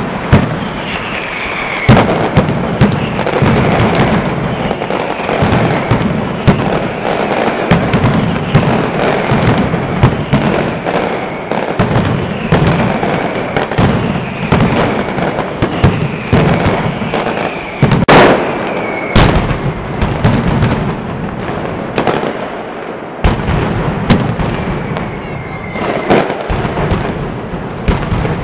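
Mascletà: a dense, unbroken barrage of firecracker bangs, with heavier booms about two seconds in and again around eighteen seconds in. Several short falling whistles cut through the bangs.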